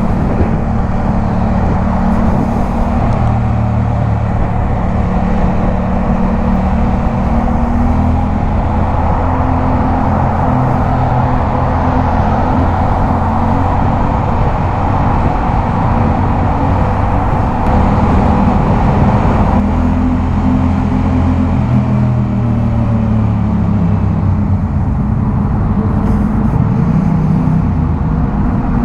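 Yamaha MT-07's parallel-twin engine through a LeoVince aftermarket exhaust, running steadily at highway speed under a rush of wind noise. The engine note shifts about two-thirds of the way through and climbs again near the end.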